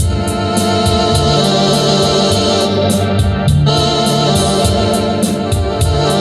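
Electronic organ playing sustained chords over shifting bass notes, with a steady high ticking beat running along with it.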